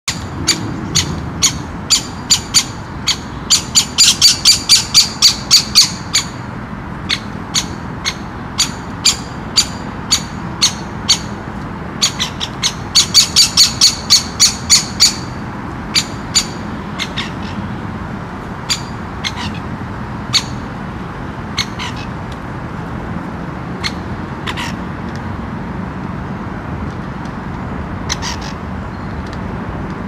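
Great spotted woodpeckers calling while an adult feeds a begging fledgling: a long series of short, sharp notes, with two fast, loud runs around 4 and 13 seconds in, then sparser and fainter calls.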